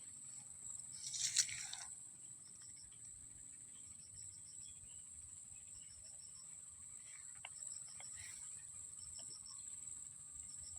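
Insects trilling: one high, steady, unbroken trill, with a second insect chirping in short bursts of a few quick pulses, repeated every second or so. A brief rustle about a second in.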